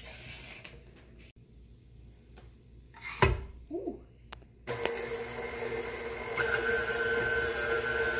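A thump about three seconds in. Then a KitchenAid Artisan tilt-head stand mixer switches on and runs steadily with a hum and whine, its beater creaming butter and sugar; it gets a little louder a couple of seconds after starting.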